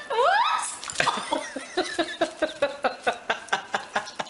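Puppy lapping and slurping food from a plate: a quick, even run of wet smacks, about five a second. A short rising-and-falling voice-like cry comes just before the lapping starts.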